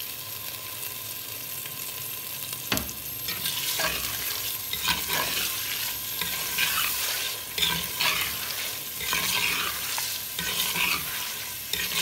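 Mutton pieces sizzling in hot oil and onions in a clay pot, being browned. A little under three seconds in a metal spoon knocks on the pot, then scrapes and stirs the meat against the clay in repeated strokes about once a second.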